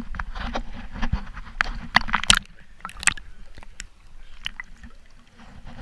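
A run of irregular knocks, clicks, scrapes and crunching sounds, dense and loudest in the first three seconds and sparser after that.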